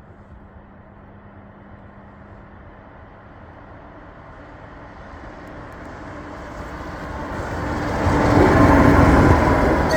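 MPT-4 diesel track-maintenance railcar approaching and passing, its engine and wheels growing steadily louder until it is loudest near the end.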